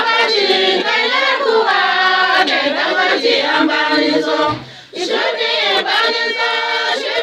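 A choir singing a song with a repeated chorus, breaking off briefly about four and a half seconds in before the voices come back.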